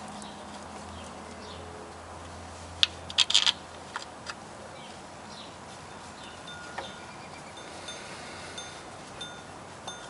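Metal clinks of bolts and hand tools being handled while bolts are threaded back into the engine's front cover by hand, with a quick cluster of sharp clinks about three seconds in and a few lighter taps later. Faint short ringing tones come in during the second half.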